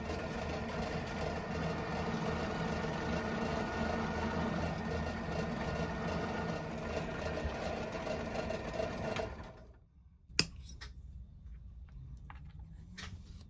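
Bench drill press motor running steadily, stopping abruptly about nine and a half seconds in. A sharp click and a few light ticks of small die-cast and plastic toy parts being handled follow.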